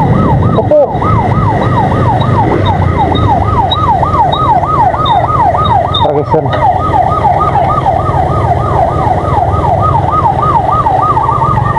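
Electronic siren in a fast yelp, its pitch sweeping up and down about three times a second and quickening near the end, over a steady low rumble of motorcycle engine and wind.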